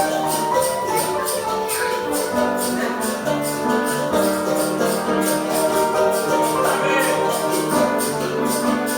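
Live instrumental music: piano and a capoeira berimbau playing pitched notes over a steady shaken rhythm from caxixi basket rattles.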